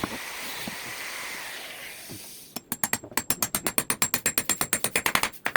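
A steady hiss, then about two and a half seconds in, fast ratcheting clicks at roughly ten a second from a tool driving a fastener home during assembly of the table leg.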